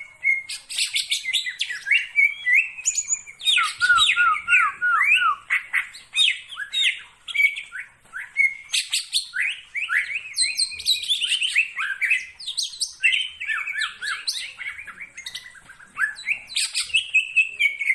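Cucak ijo (leafbird) song: a fast, varied, unbroken stream of chirps and downward-sweeping whistles, with a run of about six repeated lower notes about four seconds in.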